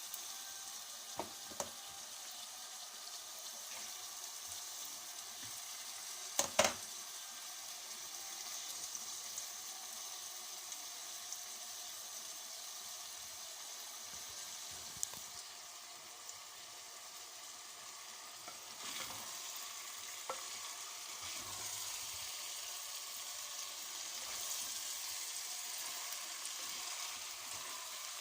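Food sizzling steadily in a hot pan while being stirred, with a few sharp clicks of a utensil and one louder knock about six and a half seconds in.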